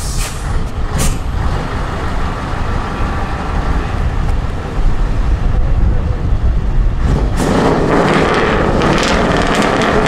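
Scania V8 truck with straight open exhaust stacks pulling away, its engine running loud and low. About seven seconds in it gets louder and harsher as the driver puts his foot down.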